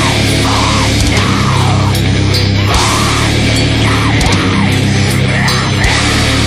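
Loud heavy rock background music with electric guitar, playing without a break.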